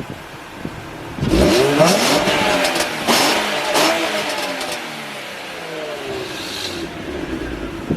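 2005 Nissan 350Z's 3.5-litre VQ35DE V6 with HKS Hiflow cats and a Z1 Y-pipe, idling and then revved sharply about a second in, the pitch climbing and then sinking back toward idle over the following few seconds. The exhaust has a slight leak where the new stainless Y-pipe meets the warped stock piping.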